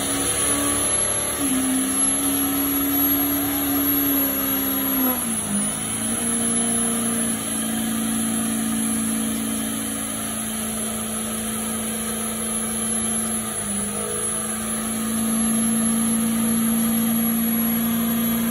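Diesel pickup truck doing a burnout: the engine is held at steady high revs, sagging briefly about four to five seconds in and again near the fourteen-second mark, with the tyres spinning in a cloud of smoke.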